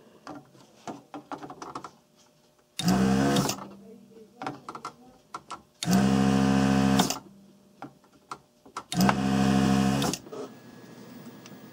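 Desoldering station's vacuum pump switching on three times, each run lasting about a second, as the heated desoldering gun sucks molten solder out of the pins of a soldered-in chip. Faint clicks come between the runs.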